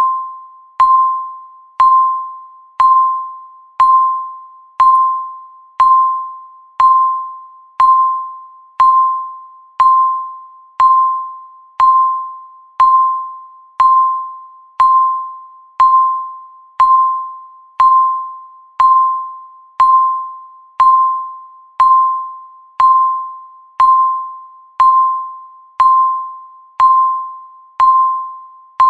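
Electronic countdown-timer beep, a single tone of about 1 kHz struck once a second and fading quickly after each strike, marking each second of the countdown.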